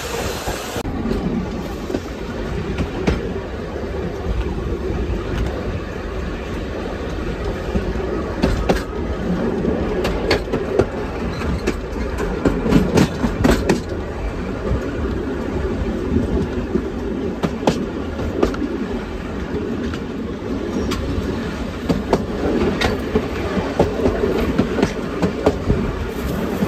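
Steam-hauled heritage passenger train running, heard from aboard its coaches: a steady rumble with irregular clicks and clacks of the wheels over rail joints. A hiss cuts off about a second in.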